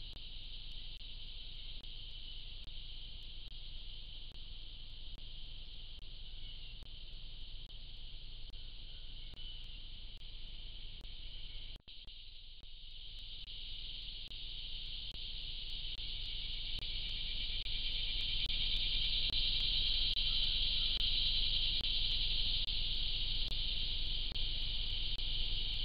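Steady, high-pitched drone of a daytime insect chorus over a faint low hum. It breaks off for an instant about twelve seconds in, where one trail-camera clip is cut to the next, then grows steadily louder over the following several seconds.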